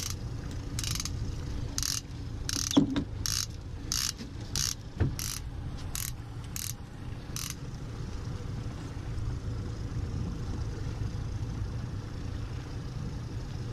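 Conventional saltwater fishing reel's clicker ratcheting in about a dozen short buzzes, roughly two a second, as line is pulled from it; the buzzes stop about halfway through. A steady low rumble runs underneath.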